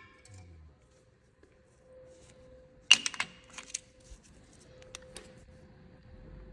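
A quick cluster of sharp metallic clinks about three seconds in, then two lighter ticks, over a faint steady hum.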